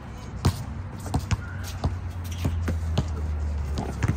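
A basketball bouncing on an outdoor hard court in an irregular string of sharp knocks as it is dribbled, over a steady low hum.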